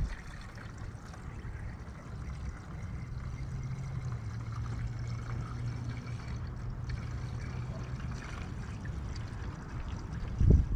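Antifreeze coolant pouring from a jug through a funnel into a radiator, a steady trickle. A low hum runs underneath through the middle, and there is a knock near the end.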